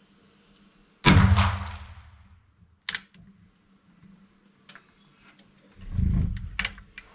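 A single shot from a muzzle-loading rifle about a second in, loud and echoing as it dies away. A sharp click follows about two seconds later, and near the end there is a low thump and a few clicks as the rifle is handled.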